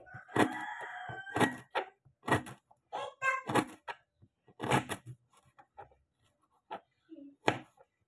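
Kitchen knife slicing lemongrass stalks on a plastic cutting board: a dozen or so irregular sharp taps, sparser in the second half. A drawn-out high call sounds in the first second, with a shorter one about three seconds in.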